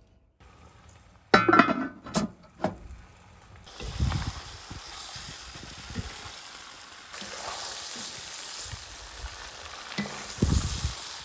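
Pieces of meat sizzling in hot fat in a cast-iron pan, stirred with a metal skimmer; the sizzle sets in about four seconds in and grows louder around seven seconds, with low knocks of the utensil against the pan. A few sharp knocks come just before it, about a second in.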